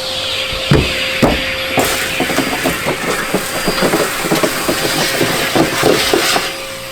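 Vacuum cleaner running with a steady whine while debris rattles and clatters up its hose in quick, irregular clicks and knocks, which stop about six seconds in.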